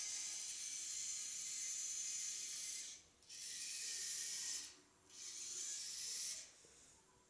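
Small Boe-Bot robot's drive servos running as it drives, a high, hissy gear whine in three spells: it breaks off briefly about three seconds in and again near five seconds, then stops about six and a half seconds in.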